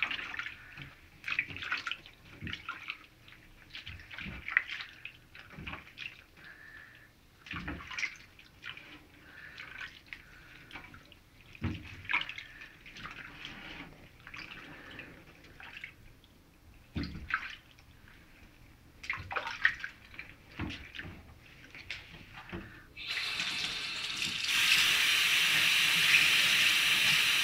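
Water splashing and sloshing in a small tub in a kitchen sink as a Silkie chicken is washed by hand, in irregular bursts. About 23 seconds in, the kitchen tap is turned on and runs steadily, louder than the splashing.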